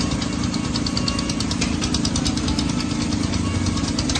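Small model steam engines running, giving a rapid, even ticking over a steady low engine drone.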